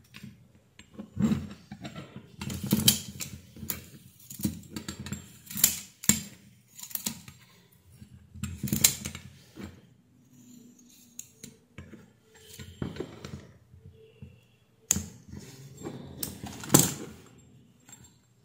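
Steel wire-twisting pliers and stiff safety wire handled against a small metal block: irregular metallic clicks, clinks and rattles as the wire is worked through the screw heads and twisted.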